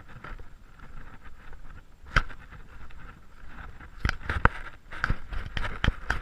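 Irregular crunching steps and sharp knocks on a sand flat strewn with shells and gravel, as someone walks across it.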